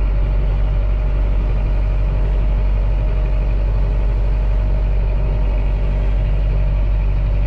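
Tractor engine running steadily while driving across a field, a constant low hum that does not change.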